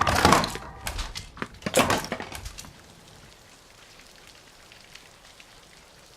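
Several sharp cracks and clattering impacts over the first two and a half seconds, loudest right at the start and again near two seconds, then a faint, steady hiss of rain.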